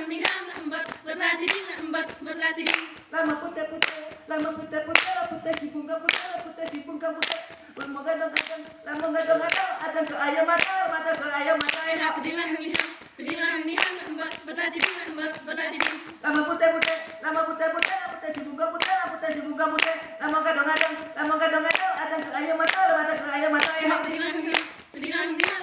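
A group of kneeling Saman dancers chanting together in unison, holding long steady notes, while they clap their hands and slap their bodies in sharp, irregular strokes about once a second.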